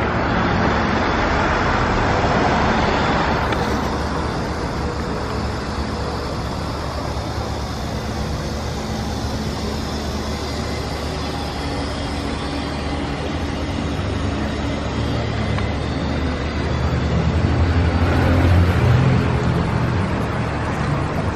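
Steady street traffic noise, a continuous rumble and hiss of passing vehicles, with the low rumble swelling near the end.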